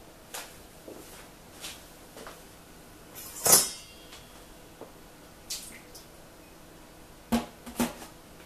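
A drinking glass of water being lifted off a coffee machine's metal drip-tray grille: a loud scrape about three and a half seconds in, after a few light ticks. Two sharp knocks follow near the end.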